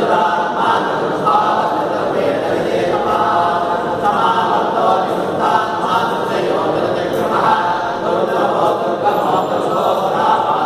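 A group of men's voices chanting a Hindu hymn together in unison, read from texts, with a steady, unbroken flow.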